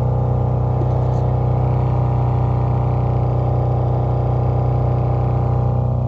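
2008 Toyota Avalon's HVAC blower motor running with a steady humming, droning noise. A hum like this is taken as a sign of a mouse or debris inside the blower.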